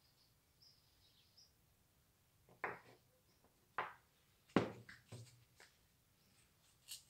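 Faint knocks and clicks of tools and workpieces being handled on a wooden workbench: about six separate taps, the loudest about halfway through. A few faint high chirps come in the first second and a half.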